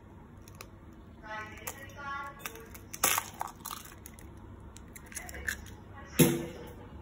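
Brown eggshell cracked against a white ceramic bowl, a sharp crack about three seconds in, then a duller knock near the end.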